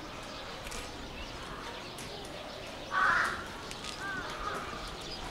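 Outdoor ambience with faint distant voices and a few faint chirps. About three seconds in, one short, rough bird call stands out as the loudest sound.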